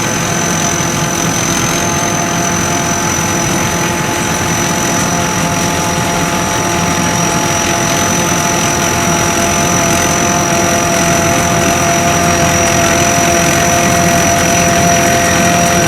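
SAKPATTANA SS-200 mini combine harvester running steadily: a constant machine drone with a high, steady whine, growing a little louder near the end.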